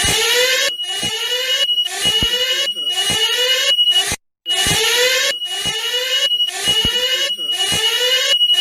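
Electronic emergency alert alarm: repeated rising sweeping tones over a steady high-pitched beep with low pulses beneath, cycling roughly every four seconds with a brief full cut-out about four seconds in.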